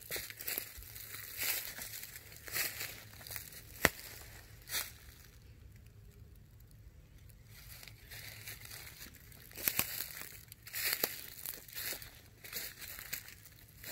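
Footsteps crunching through dry leaf litter on a woodland floor, an irregular crackling that eases off for a few seconds in the middle and picks up again. One sharp click about four seconds in.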